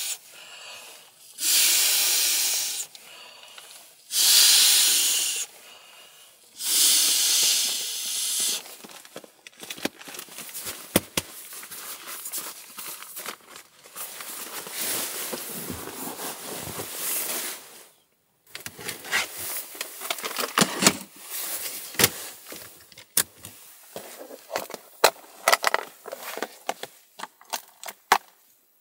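Three long, forceful breaths blown into the valve of an inflatable pillow. After that comes crinkly rustling of the pillow's fabric as it is handled, with many small sharp clicks and taps.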